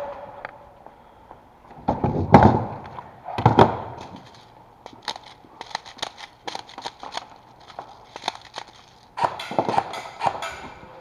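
A run of sharp knocks and clicks, with two loud heavy thumps about two and three and a half seconds in and a dense cluster of knocks near the end.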